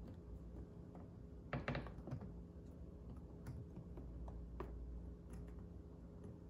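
Light clicks and taps of hands shifting and pressing a plastic headlight template against a golf cart's plastic front body panel, with a quick cluster of louder clicks about a second and a half in and a few scattered taps after.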